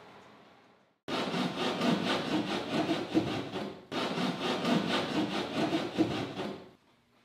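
Abrasive on a red cedar strip canoe hull, rubbed back and forth in quick strokes: hand sanding of the wooden hull. It starts about a second in, breaks off sharply midway, restarts at once and stops shortly before the end.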